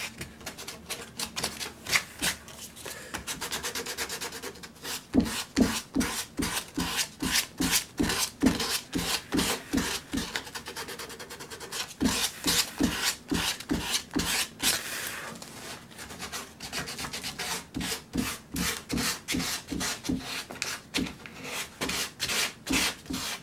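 Foam sanding sponge rubbed by hand over carved wood in quick back-and-forth strokes, two or three a second, the fine sanding that smooths down the raised grain fuzz before the finish coat.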